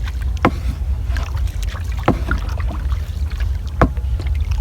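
Small wooden boat being rowed: three sharp wooden knocks of the oar against the boat, about a second and a half apart, over a steady low rumble.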